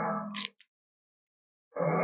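An animated-series Tyrannosaurus rex sound effect cuts off about half a second in, with two short hissy crackles as it ends. About a second of dead silence follows, then the next T. rex effect starts abruptly near the end.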